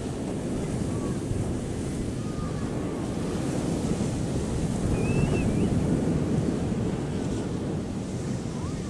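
Ocean surf washing steadily on a beach, with wind rumbling on the microphone. A few faint, high, gliding chirps come through about a second in and again around five seconds in.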